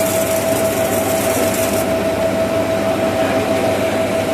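Combined rice hulling and milling machine running, a steady mechanical din with a constant whine through it. A high hiss on top cuts off suddenly about two seconds in.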